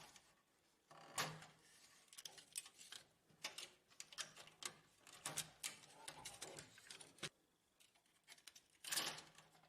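Faint scattered clicks and small plastic rattles of a laser printer's fuser cable connectors being unplugged and handled, with a slightly longer scraping sound near the end.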